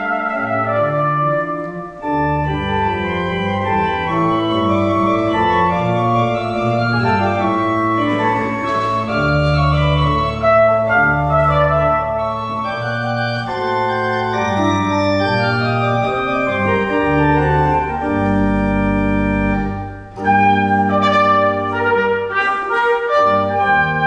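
A pipe organ and a trumpet playing a piece together: held organ chords over deep pedal bass notes, with the melody above. The music breaks briefly between phrases, about two seconds in and again near the end.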